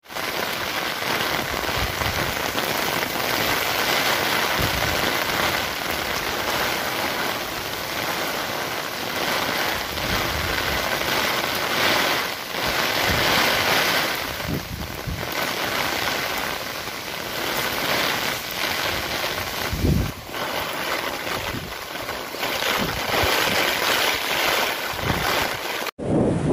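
Heavy rain with strong gusty wind, a steady hiss broken by occasional low thuds. Near the end it cuts to surf.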